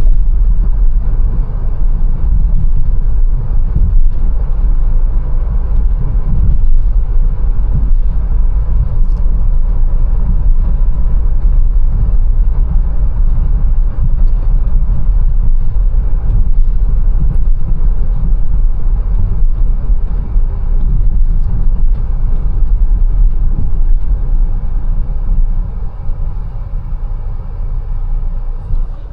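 Mercedes-Benz A180 driving, a steady low rumble of engine and road noise, somewhat quieter near the end.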